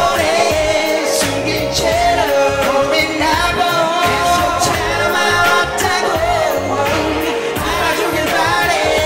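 Live pop song: two male vocalists singing into handheld microphones, taking turns on the lines, over a recorded backing track with a steady beat, played through small amplifiers.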